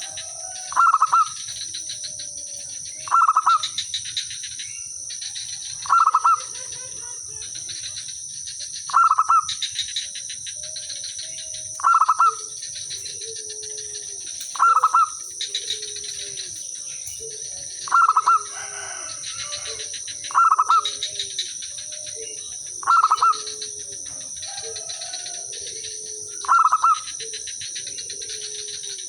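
Zebra dove (perkutut) singing its cooing song over and over, a loud clipped phrase about every three seconds with softer, lower coos in between.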